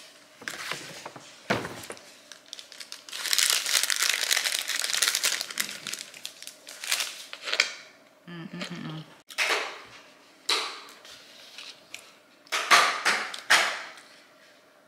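Takeout food packaging crinkling and rustling as it is handled, one long rustle about three seconds in, then a few sharp clicks and knocks.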